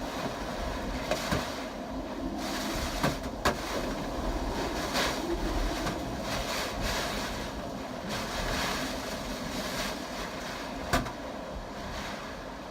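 Strong typhoon wind roaring in gusts, buffeting the microphone, with several sharp knocks and rattles from things being struck by the wind.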